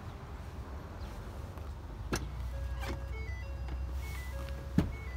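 Low steady rumble with a few clicks, the loudest near the end as the door latch of a 2011 Ford F-250 Super Duty crew cab is pulled open. A faint tune of short beeping notes plays from about halfway.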